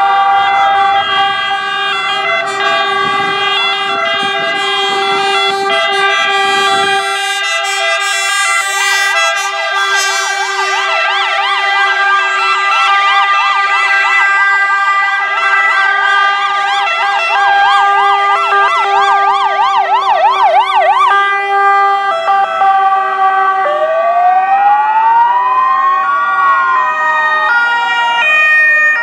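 Sirens of several ambulances in a slow convoy, sounding at once. Steady held siren tones run throughout, layered with a fast up-and-down yelp from about 9 to 21 seconds and a slow rising-and-falling wail starting a few seconds before the end. Engine rumble from the passing vehicles is heard in the first few seconds.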